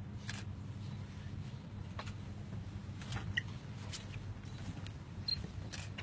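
Camera shutters clicking now and then, a handful of separate clicks, over a steady low room hum.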